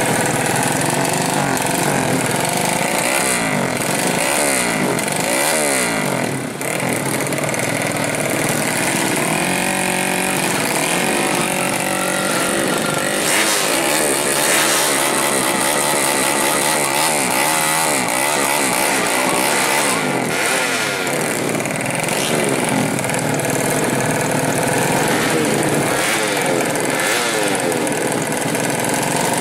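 Drag motorcycle engines revving hard at the start line, several bikes overlapping, the throttle blipped up and down over and over.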